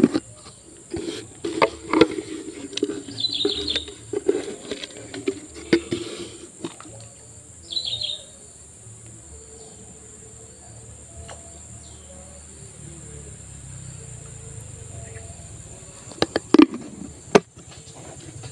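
Steady high-pitched insect drone, with rustling and knocks from hands handling the fishing hook and bait close to the microphone through the first several seconds. Two short bird chirps come about three and eight seconds in, and a couple of sharp clicks near the end.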